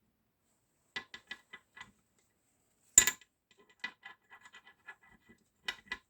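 Metal gearbox parts and hand tools clicking and knocking as they are handled. There is a quick run of light clicks about a second in, one sharp, louder knock about three seconds in, then scattered small clicks and a last pair near the end.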